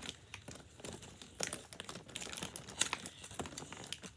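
Miniature toy cereal box and its small packaging being handled and opened by hand: scattered light clicks and crinkles.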